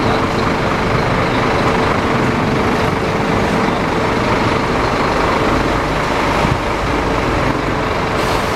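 Coach bus's diesel engine running close by: a steady, even drone with a constant hum.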